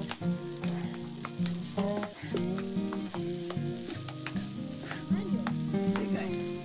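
Fried rice sizzling on an electric hot plate as two wooden spatulas stir and scrape through it, with frequent short clicks of wood against the plate. Background music with held notes plays along.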